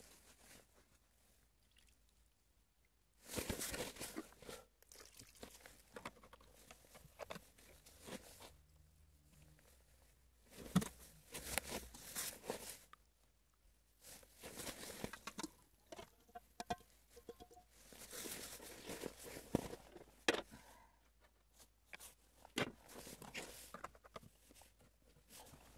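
Snow crunching and scraping in irregular bursts, as snow is cut, handled and packed into igloo blocks.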